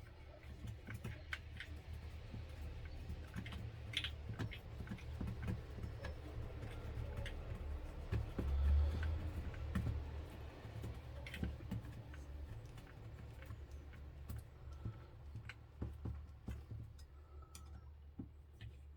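Small irregular clicks and taps of a hex driver, screws and kit parts being handled on a workbench while screws are driven into an RC car chassis, over a steady low hum, with a heavier low bump about halfway through.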